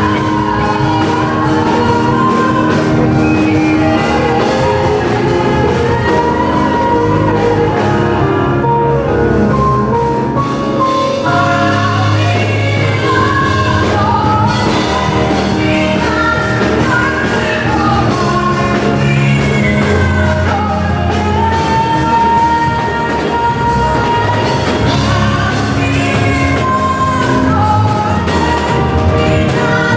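Live worship music: singing over a band with a steady drum beat.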